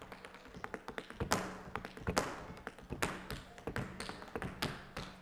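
Tap shoes striking a wooden stage floor in a solo tap routine: quick runs of clicks broken by louder accented strikes about once a second.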